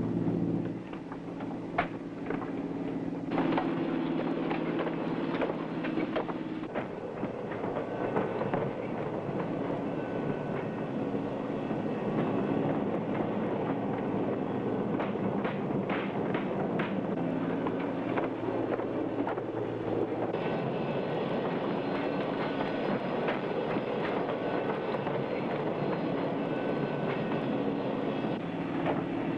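Cargo-handling machinery running steadily, with metal clanks and rattles as netted cargo pallets are moved over the aircraft's roller floor.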